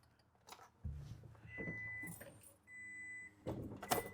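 A dashboard warning chime in a pickup's cab beeps three times, about a second apart, with a low steady hum coming on about a second in. Knocks and rustling near the end are the loudest part, just before the engine is cranked.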